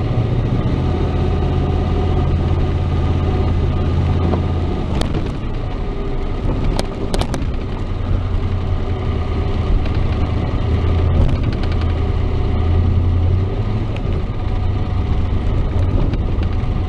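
Chevrolet S10 pickup's engine running steadily on the road, its note dipping and picking up again a couple of times, with the valve lifters clacking like solid rockers, a sign of too little lifter preload once the engine is hot. A few sharp clicks sound about five and seven seconds in.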